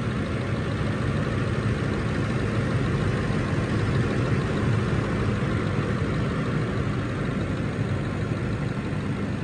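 2005 Ford F-150 pickup's engine idling steadily, heard at the open engine bay.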